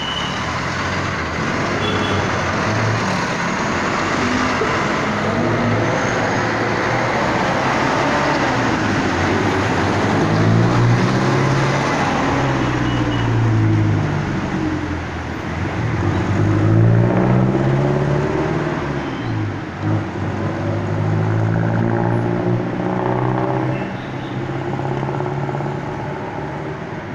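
Close street traffic: bus and jeepney engines running, with the engine pitch rising and falling several times as vehicles pull off and pass.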